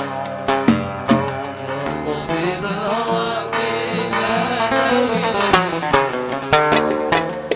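Instrumental interlude of a Yemeni song: melodic instruments over a percussion beat. The strokes drop back for a held melodic passage in the middle.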